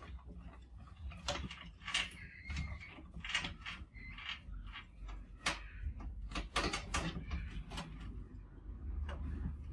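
A crowd of trapped mice scrambling in a glass tank, their claws scratching and rattling on the wire mesh in quick, irregular scrapes and clicks.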